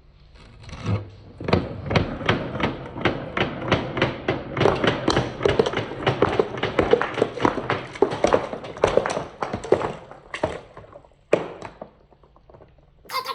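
Balls rolling and clacking down a wooden marble run: a dense stream of quick clicks and knocks on wood for about ten seconds, thinning to a few single knocks, then one sharp clatter at the very end.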